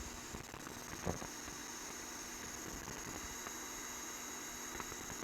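Steady hiss of small workbench machinery running, with a thin high whine over it and a faint tick about a second in.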